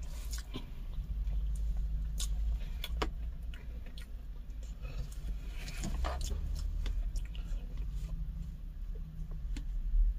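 A person eating, with scattered short clicks and taps, likely chopsticks or utensils on dishes, over a steady low rumble.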